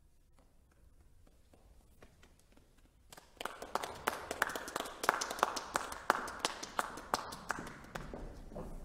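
Near silence for about three seconds after the final note, then applause breaks out, the individual claps distinct, continuing as the performers bow.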